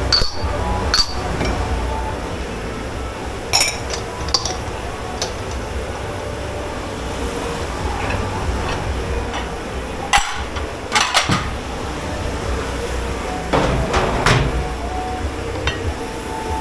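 Pots, pans and dishes knocking and clanking as they are washed and handled in a commercial dish pit. There are several sharp clanks, some in quick clusters, over a steady low hum.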